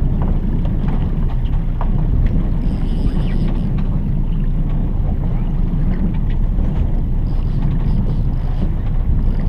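Steady low rumble of a small boat under way at trolling speed, from the outboard motor and water along the hull, with scattered light knocks from the gear aboard.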